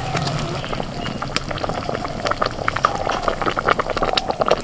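Spiced gravy boiling hard in a wide metal kadai, bubbling with many small crackling pops, as pieces of fried katla fish are dropped in one by one.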